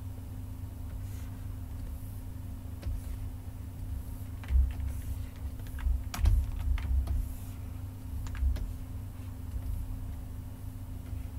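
Irregular clicks of a computer mouse and keyboard, a few at a time and busiest in the middle, over a steady low hum.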